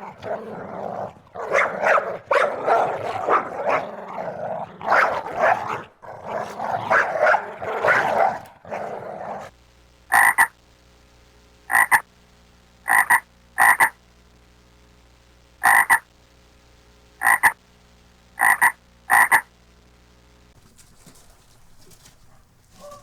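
Animal calls: a dense run of rough, rasping calls for about nine seconds, then eight short separate calls spaced one to two seconds apart.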